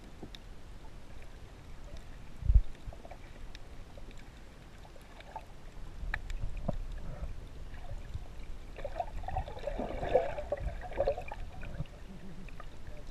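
Muffled underwater sound through an action camera's waterproof housing: low rumbling water movement with scattered knocks. There is a sharp thump about two and a half seconds in and a muffled burst of sound around ten seconds in.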